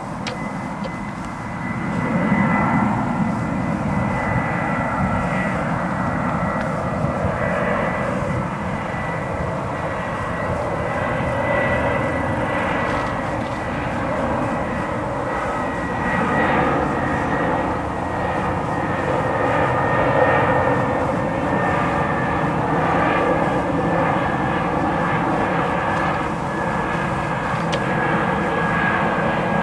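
Jet airliner passing low overhead on approach, its engines a steady rumble with a thin high whine that sinks slowly in pitch. The sound swells about two seconds in and then holds.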